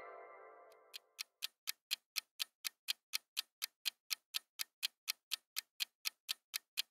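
Steady clock-ticking sound effect marking a quiz countdown timer, about four ticks a second. A ringing tone fades out during the first second before the ticking starts.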